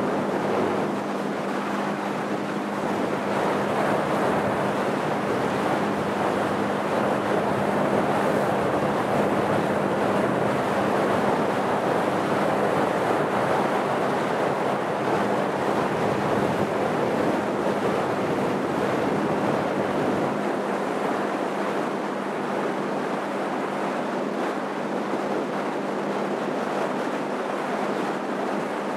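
Motorboat under way: a steady engine drone under the rush of water along the hull and wind buffeting the microphone, a little quieter about two-thirds of the way through.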